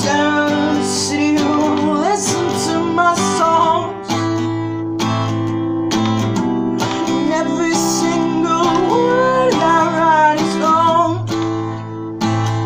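Steel-string acoustic guitar strummed in a steady chord pattern, with brief breaks in the strumming about four seconds in and near the end.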